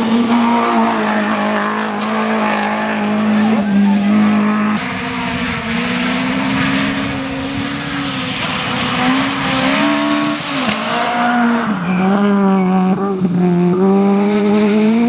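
Rally car engine running at high revs, its pitch dipping and climbing back several times as the driver works the throttle and gears, with tyres squealing.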